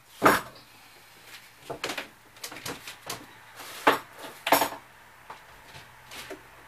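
Several sharp knocks and light clatters of a paint tray and paintbrush being handled, the loudest just after the start.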